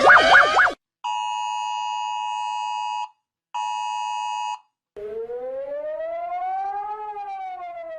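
Emergency Alert System alarm tones: a fast warbling tone cuts off in the first second, then the steady two-tone EAS attention signal sounds twice, the first about two seconds long, the second about one. Near the middle a siren-like tone starts, rising slowly and then falling.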